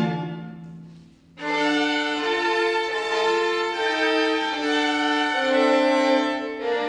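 Chamber string orchestra playing. A loud passage dies away over about a second, then the bowed strings come back in with held notes and a slow moving line.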